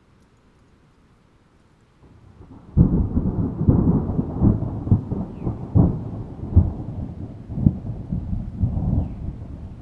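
Thunder in a thunderstorm: quiet for about two seconds, then a rumble builds into a sharp crack and rolls on with several more cracks, slowly dying down near the end.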